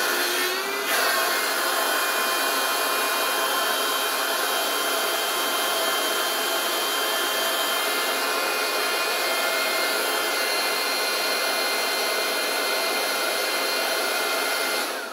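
Electric air pump running steadily with a whirring whine, blowing air into an inflatable boat's compartment. It is switched off right at the end, its whine falling away as the motor spins down.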